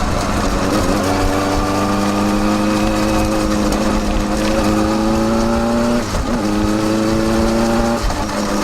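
Kawasaki Balius 250 cc inline-four exhaust through a Wr's aftermarket muffler with its baffle fitted, heard close at the silencer while riding. The engine note climbs steadily under acceleration, with short drops in pitch about a second in, around six seconds in and again near the end, as at gear changes.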